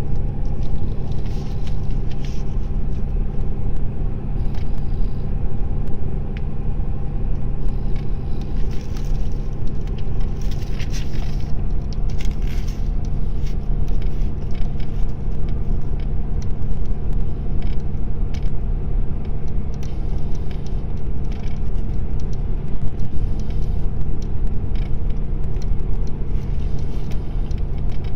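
Steady low rumble of engine and road noise inside a moving car's cabin, with scattered brief hissy sounds over it.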